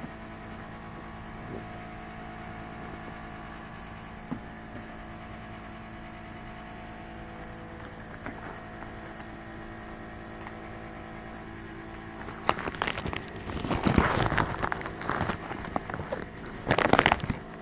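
Steady low electrical hum. About twelve seconds in come several seconds of loud crackling and rustling close to the microphone, in uneven bursts, with a last loud burst just before the end.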